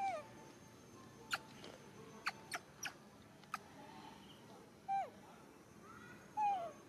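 A young macaque giving short squeaky calls that slide down in pitch, three times, with several sharp clicks in between.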